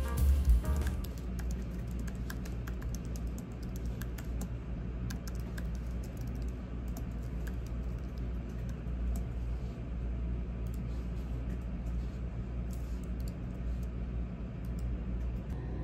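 Typing on a computer keyboard: quick, irregular key clicks over a steady low hum.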